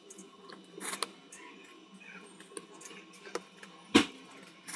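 Scattered small clicks and taps of a precision screwdriver and fingers on an opened Samsung Galaxy Z Fold 5's metal frame, with one louder knock about four seconds in.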